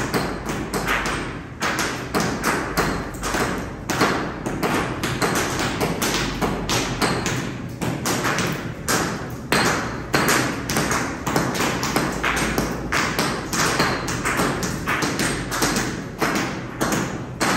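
Several workers' hand hammers and chisels striking a concrete floor, chipping off the old floor coating: irregular, overlapping knocks and taps, several a second.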